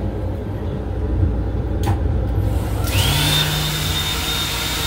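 Sensor-operated sink faucet in a railcar restroom starting up about three seconds in. A motor whine climbs quickly to a steady high pitch over a low hum, and water hisses into the basin, all over the steady rumble of the moving train.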